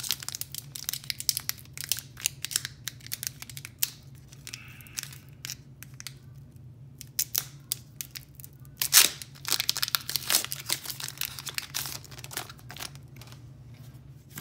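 A foil Pokémon booster pack wrapper being torn open and crinkled by hand: a run of sharp crackles and rips, loudest and densest about nine to ten seconds in, over a steady low hum.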